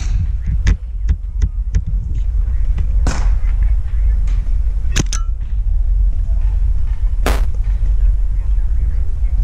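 Paintball markers firing in sharp pops over a steady low rumble: a quick run of shots in the first two seconds, then single pops about three, five and seven seconds in.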